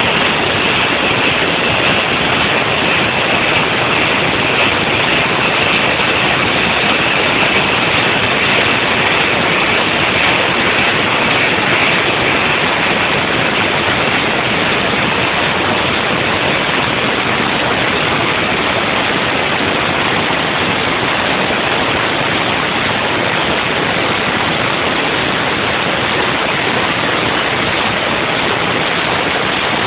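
Haas VF2 vertical machining center running a trochoidal milling cut: a loud, steady rushing noise, with a faint high whine over roughly the first dozen seconds.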